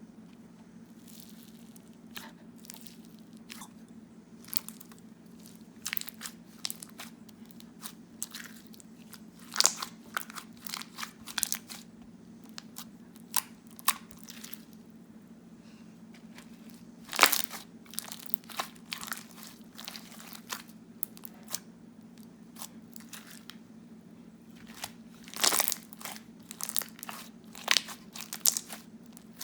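Clear glue jiggly slime with fake snow in it being squished and stretched by hand, giving irregular wet clicks and pops, with a few louder bursts about ten, seventeen and twenty-six seconds in.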